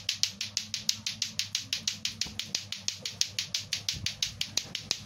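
Lato-lato (clacker balls) clacking steadily, the two balls striking each other in a fast even rhythm of about five clacks a second.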